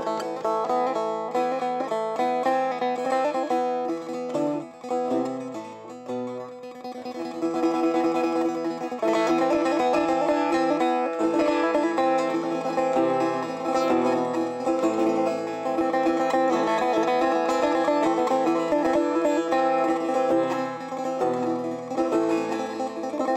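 Instrumental background music led by a plucked string instrument playing quick runs of notes, thinner for a few seconds and then fuller and steadier about eight seconds in.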